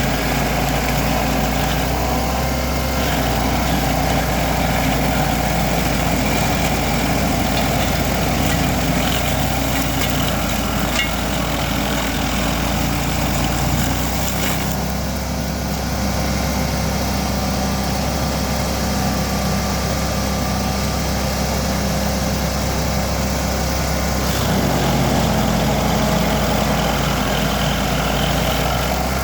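Vermeer SC382 stump grinder's 37 hp engine running steadily while its cutter wheel chews into a dry hickory stump. The grinding noise eases about halfway through and picks up again a few seconds before the end.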